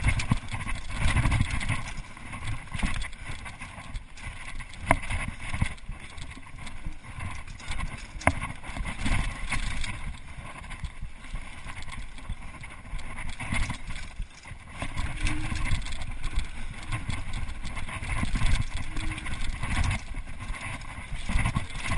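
Mountain bike descending a dirt forest trail at speed: a continuous rumble of tyres over the ground and air rushing past, with the bike rattling over bumps and a few sharp knocks, about five and eight seconds in.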